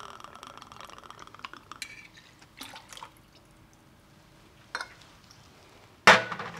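Tomato juice poured from a bottle into a metal jigger, the stream's pitch rising as the measure fills. Then a few light metal clinks as the jigger is handled and tipped into the steel mixing tin.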